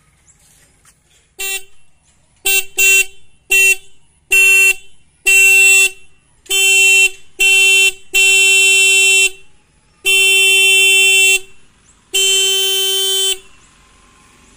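Zeener electric windtone horn on a KTM RC motorcycle sounding about eleven times, each blast one steady pitch: a few short toots first, then longer held blasts of a second or more.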